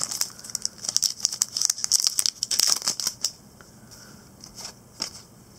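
Foil trading-card pack wrapper being torn open and crinkled in the hands: a dense run of crackles for about three seconds, then only a few light rustles.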